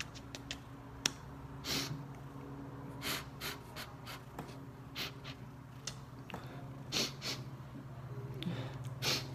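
Short, sharp, noisy breaths, about one a second and often in close pairs, over a steady low hum.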